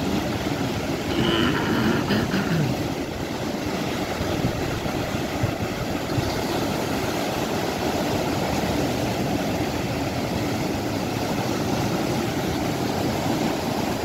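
Steady rushing noise of surf breaking and foam washing over the shore.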